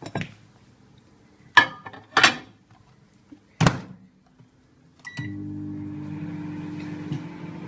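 Microwave oven being worked: four sharp knocks and clicks over the first four seconds, then a short beep about five seconds in, and the oven starts running with a steady low hum.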